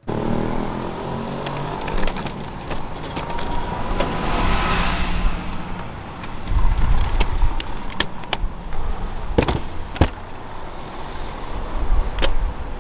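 Street noise beside a car: a steady low traffic rumble, with several sharp knocks and clicks in the second half.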